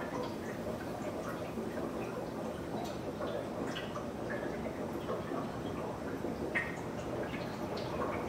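Brown's gas (oxyhydrogen) torch flame burning on silver metal: a steady low rush with small irregular ticks scattered throughout.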